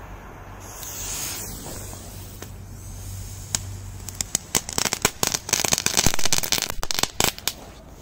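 A lit firecracker on the ice hissing as its fuse burns and throws sparks, then going off in a rapid run of crackling pops for about three seconds, starting about halfway through.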